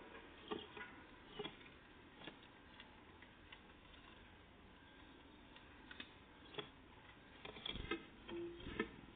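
Faint scattered taps and clicks of tits pecking at and hopping on a peanut feeder, with a quicker, louder run of taps near the end.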